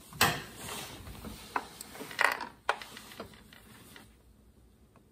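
Steel pliers clicking and scraping against the blower engine's metal parts while working the kill wire off the ignition module: a handful of sharp clinks in the first three seconds or so, then quieter.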